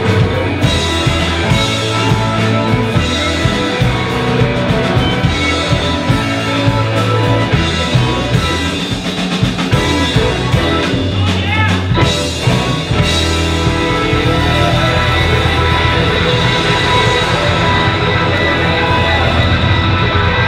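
Live rock band playing: electric guitars, a bowed violin, keyboards and a drum kit. About two-thirds of the way through, the drum hits thin out and the band holds longer, more sustained notes.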